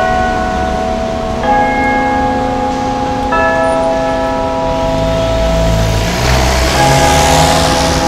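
Ginza Wako clock tower bells ringing the time-signal chime, a struck, ringing bell note roughly every two seconds. Road traffic rumbles past in the second half, partly covering the bells.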